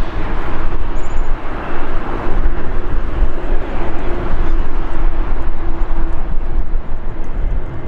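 Jet airliner engines running, a loud steady roar with deep rumble and a faint steady hum through most of it.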